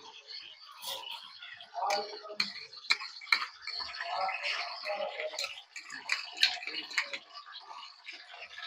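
Ginger-garlic paste sizzling and crackling in hot oil in a kadhai. A wooden spatula stirring it gives several sharp knocks and scrapes against the pan.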